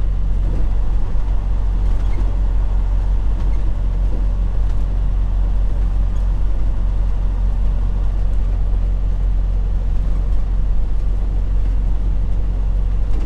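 Freightliner Cascadia semi-truck heard from inside the cab while driving at town speed: a steady low engine drone with road noise.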